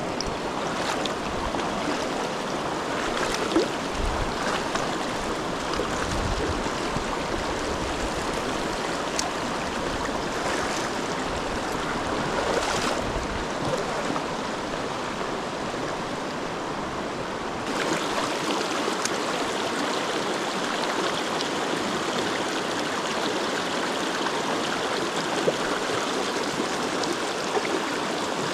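Mountain stream water rushing steadily over rocks, with a few faint clicks.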